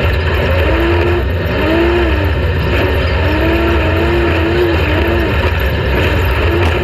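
Off-road race vehicle's engine running hard, its pitch rising and falling about every second or so over a loud, steady rush of noise.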